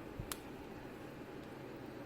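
Faint steady background hiss with one small sharp click a little after the start.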